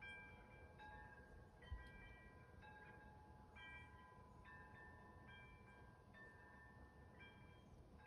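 Wind chimes ringing faintly, several clear metal notes struck at random, each ringing on and overlapping the next. A soft low thump sounds a little under two seconds in.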